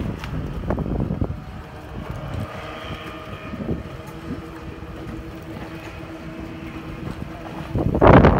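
Outboard engines of a passenger speedboat running at speed offshore, a steady distant drone under gusty wind noise on the microphone. A loud gust buffets the microphone near the end.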